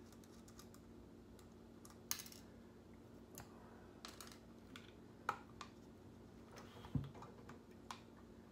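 Light clicks and taps of metal and plastic parts as a Matala Hakko 60L diaphragm air pump is handled and taken apart by hand. They come scattered, a few seconds apart, with one duller knock about seven seconds in.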